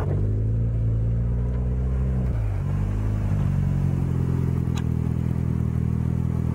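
Nissan sedan's engine idling steadily through a dual-tip exhaust, just after a SeaFoam intake cleaning, as it burns off the cleaner and carbon deposits.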